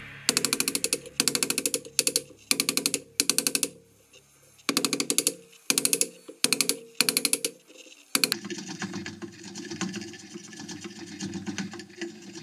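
Hand chisel paring out a groove along a wooden board: a series of short, crackly scraping strokes, about one a second, as each cut lifts a shaving. There is a brief pause a little after halfway. The scraping turns quieter and steadier toward the end.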